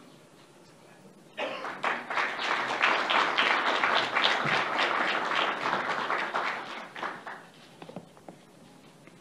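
Audience applauding, starting suddenly about a second and a half in, lasting about six seconds, then thinning out to a few last claps.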